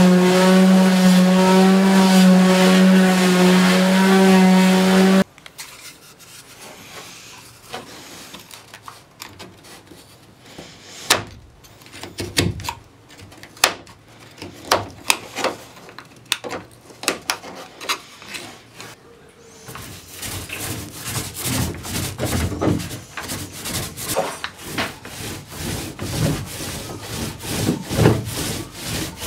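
Electric palm sander running with a steady hum on the plywood canoe's gunwale, cutting off about five seconds in. Quieter scattered scrapes and clicks follow, and in the last third a paint roller rubs back and forth in quick repeated strokes over the plywood hull floor as it spreads a coating.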